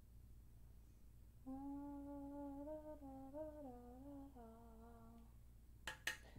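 A woman humming a short tune of several held notes, starting about a second and a half in and stopping a little after five seconds. A couple of sharp clicks follow near the end.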